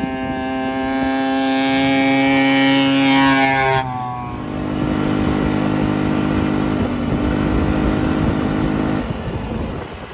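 E-Ton 50cc two-stroke ATV engine running at a steady high pitch and getting louder, its pitch falling slightly before it cuts off abruptly about four seconds in. A Murray Explorer go-kart's engine then runs steadily at a lower, rougher pitch and fades near the end.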